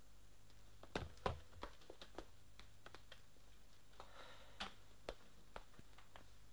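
Faint knocks, taps and shuffling of people moving about, with two sharper knocks about a second in and scattered lighter taps after, over a low steady hum.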